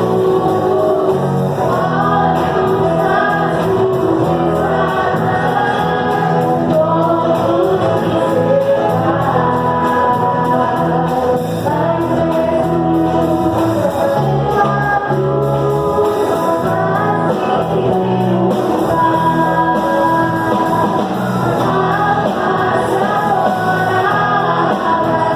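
Gospel praise music: singing over a steady band accompaniment.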